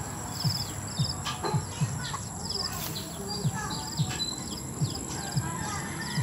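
Birds chirping and trilling, many short high calls and quick buzzy trills, over a soft low thump that repeats about every two-thirds of a second.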